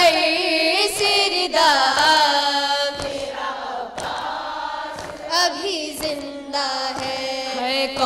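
Several women chanting an Urdu noha (Muharram lament) in unison without instruments, drawing out long, wavering notes. A soft thump comes about every two seconds, the beat of matam chest-striking that keeps time with the lament.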